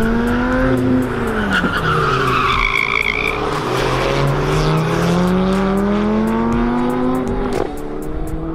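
Sports car driven hard on a race circuit: the engine note rises, drops back about a second in, then climbs again in one long rise and falls near the end. A brief tyre squeal comes around two to three seconds in.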